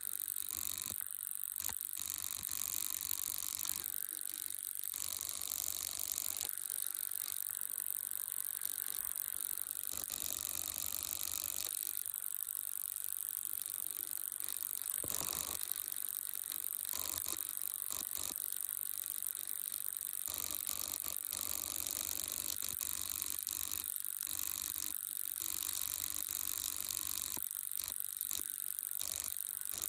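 A steady mechanical clatter of fine, rapid clicks over hiss, unchanging throughout.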